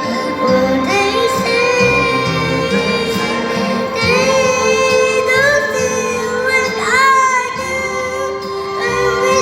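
A female voice singing a melody with held and gliding notes over a backing track; the singer has a cough and flu.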